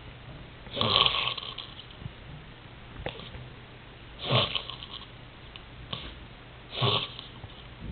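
Snoring during sleep: three loud snores about two and a half to three seconds apart, with quieter breathing between them.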